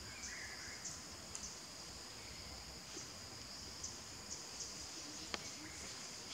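Steady high-pitched insect chorus with faint irregular ticks in it, and one sharp click about five seconds in.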